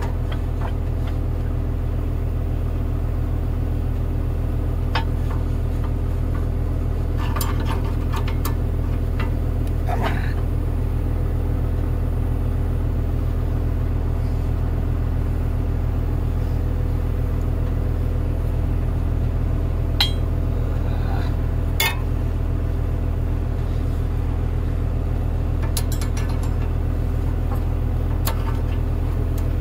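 An engine idling steadily, with occasional short metallic clinks and taps as a steel pin is worked into a dozer's track idler yoke.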